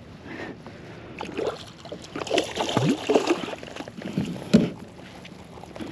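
Water splashing and irregular knocking on a fishing kayak while a fish is being reeled up, with one sharp knock about four and a half seconds in.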